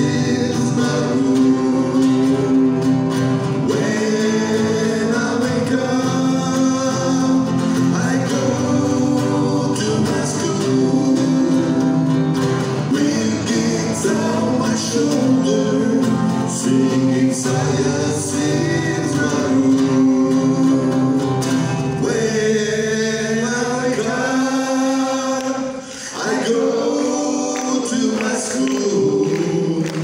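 Live song: two acoustic guitars strumming chords while voices sing the melody, with more than one voice singing together.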